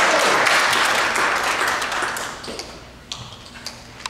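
Audience clapping, dying away after about two seconds, followed by a few scattered light taps.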